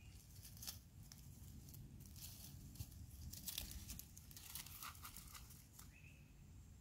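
Dry leaf litter crackling and rustling underfoot in irregular light crunches as someone walks through it.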